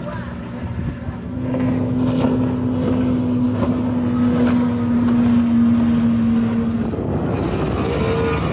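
Racing powerboat engine running at speed, holding one steady note for several seconds before the pitch shifts up near the end.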